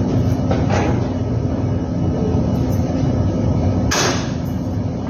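Overhauled reciprocating compressor running under test with a steady, heavy low hum. A sharp burst of noise about four seconds in, with a couple of fainter ones near the start.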